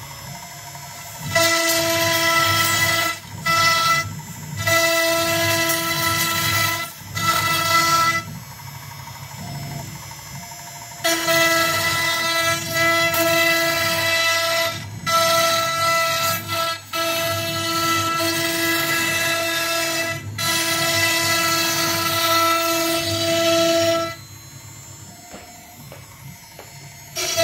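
CNC router milling plywood: a steady pitched whine with overtones and the hiss of the bit in the wood, starting and stopping in spells of a few seconds as the machine moves through its cuts. A quieter stretch a third of the way in and another near the end leave only a low hum.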